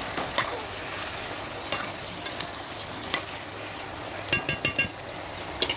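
Cubed bottle gourd and onions sizzling in a steel kadai while a metal spoon stirs them. Scattered scrapes and clinks of the spoon against the pan, with a quick run of ringing clinks about four and a half seconds in.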